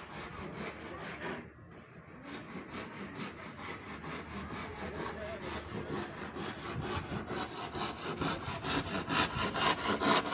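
Rapid rhythmic rasping strokes, about five a second, like sawing or scraping. They break off briefly about one and a half seconds in and grow louder towards the end.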